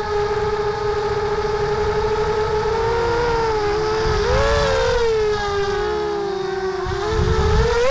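Mini quadcopter's brushless motors and propellers whining steadily in flight, heard from the onboard camera. About halfway through, the pitch splits into several tones that bend up and down as the motors change speed through a turn, then rises near the end, over a low rumble of air on the microphone.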